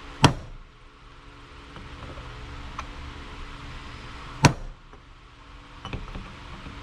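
Two sharp hammer strikes on steel, about four seconds apart, each ringing briefly, with a few faint taps between: a new wheel bearing race being driven slowly into a 1959 Ford F-100 front hub.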